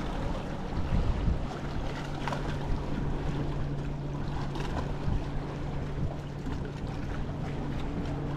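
Wind buffeting the microphone over water, with a steady low hum setting in about a second and a half in.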